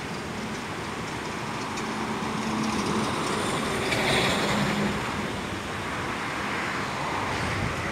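Steady rush of a fast mountain river running over stones, with a vehicle passing by on a road across the water, loudest about four seconds in.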